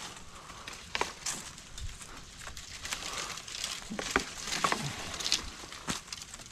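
Footsteps crunching through dry leaf litter and brush on a forest floor, with twigs crackling and snapping at irregular intervals.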